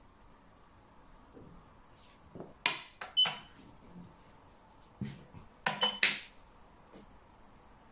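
Xiangqi pieces clacked down onto the board, in two quick groups of sharp clicks: a pair a little under three seconds in, then a tighter run of three or four about two seconds later.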